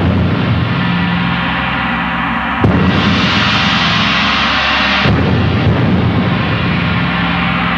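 Loud music with two big crashing percussion strikes, about two and a half seconds apart, each ringing on over sustained low notes.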